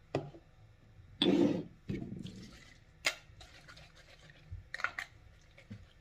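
Handling of toiletry bottles: a few sharp clicks and knocks of plastic containers and caps, with two short scuffing noises a little over a second in, which are the loudest part.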